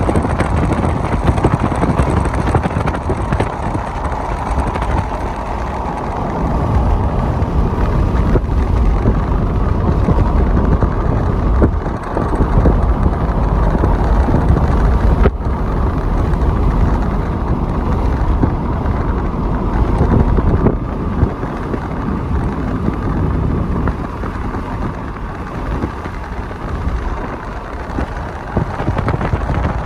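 Freight train rolling past with a steady low rumble, wind buffeting the microphone, and a single sharp clank about fifteen seconds in.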